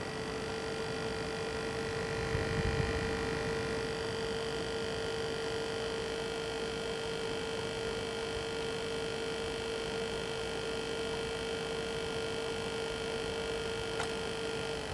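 H220 all-in-one liquid cooler's pump running sped up, a steady whine with several overtones, the noise the owner calls a grinding, clicking noise and cannot tell apart from an air bubble or a dying pump. A brief low thump comes about two and a half seconds in.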